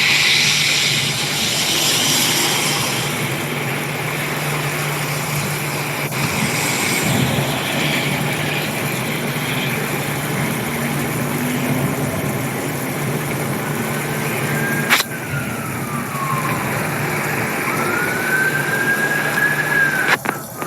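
Steady rain and road-traffic noise with a low engine hum. About fifteen seconds in there is a sharp click, then a wailing tone that slides down, and later a second wail that rises and falls.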